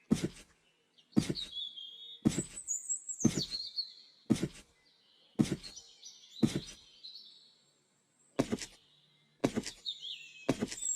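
Animation sound effects: a string of sharp hits, about one a second with a short pause near the end, with high chirping, whistling glides between them.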